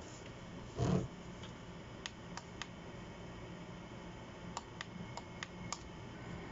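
Light sharp clicks, in two small clusters, from a small plastic ultrasonic humidifier being handled, with a soft thump about a second in. The humidifier itself makes no running sound: it is getting no power.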